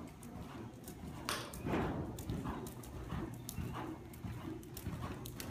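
Horse's hoofbeats at a canter on the sand footing of an indoor arena: repeated dull thuds with small clicks among them.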